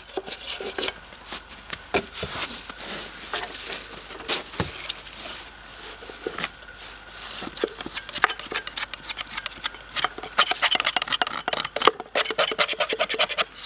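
A spatula scraping and knocking against the wooden walls of a starling birdhouse, clearing out an old nest of dry grass and leaves: a run of quick scrapes and clicks that grows busier about ten seconds in.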